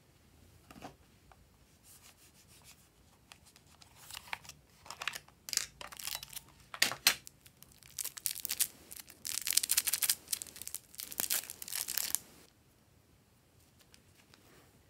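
Small clear plastic packet crinkling and tearing as it is opened by hand: a run of sharp crackles that stops about two-thirds of the way through.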